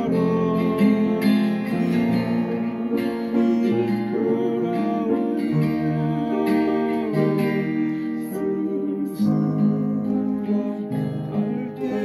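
Acoustic guitar and upright piano playing a song together, with continuous notes and chords.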